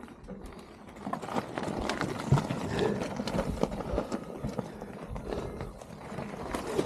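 Polygon Siskiu mountain bike rolling over loose rocky ground: tyres crunching on stones with irregular rattling and knocking from the bike, starting about a second in.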